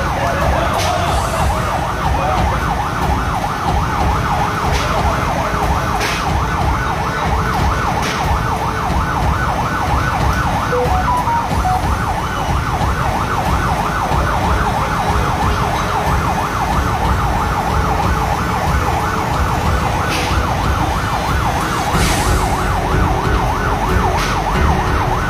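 An emergency vehicle siren sounding a fast, repeating yelp, over a heavy low rumble.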